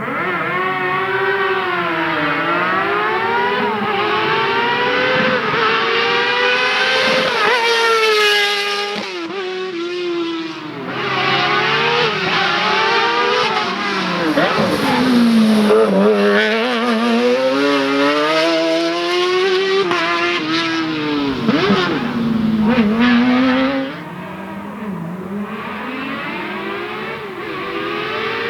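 A slalom race car's engine at full throttle, its pitch climbing and dropping again and again as the car accelerates, shifts and brakes through the course.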